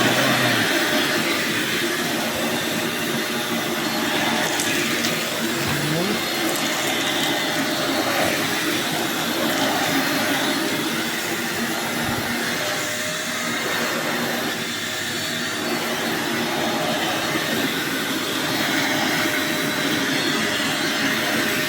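Grandt GD-1605 canister vacuum cleaner running steadily at its single power setting, with a loud, even rush of air and motor whine.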